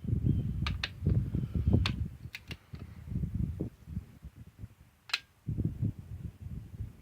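Several sharp clicks from a click-type torque wrench and socket retorquing cylinder head bolts to 33 foot-pounds, most within the first three seconds and one more about five seconds in. Low knocking and rumbling handling noise runs between them.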